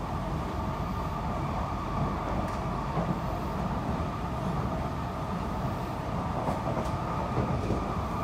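Steady interior running noise of a Kawasaki–CSR Sifang C151B metro train travelling at speed: an even rumble of wheels on rail, with a few faint clicks from the track.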